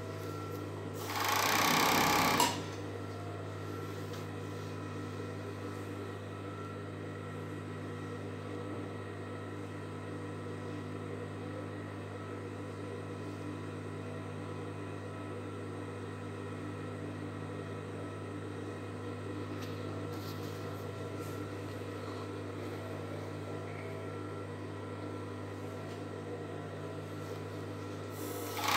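Five-thread industrial overlock (serger) machine stitching fast in a short loud burst about a second in. For the rest of the time its motor hums steadily while the needles are stopped.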